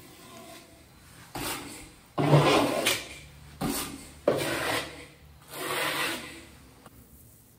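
A trowel scraping thin-set mortar onto a shower wall in about five separate strokes, each half a second to a second long.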